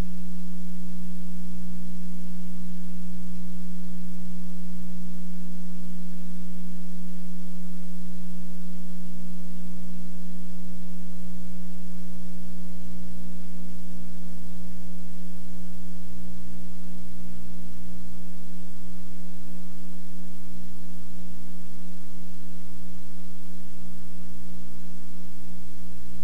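Steady electrical hum: one low, unchanging buzz-like tone with fainter higher overtones and a low rumble beneath it.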